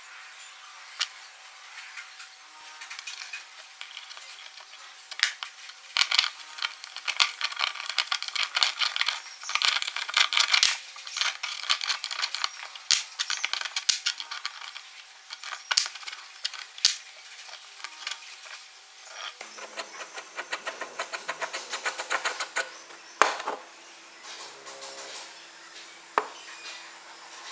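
Small steel parts clinking and rattling as they are handled and fitted together: a steel roller sleeve, washers and a nut on a threaded bolt through square steel tubing. Sharp metallic clicks come thick and fast through the middle stretch.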